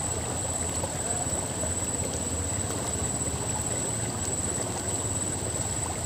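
Shallow river flowing over a gravel riffle: steady rushing water.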